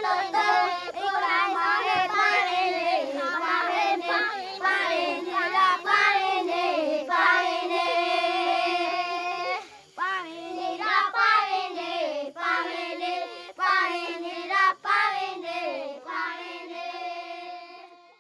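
A child singing a flowing melodic song, with short breaks about ten and fifteen seconds in, fading out at the end.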